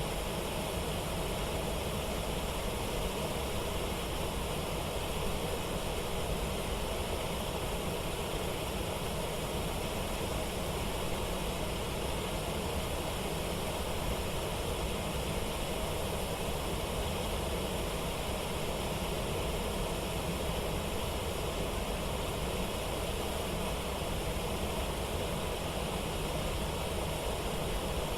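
Steady rushing of falling water, a waterfall or rapids, an even roar that holds constant without breaks.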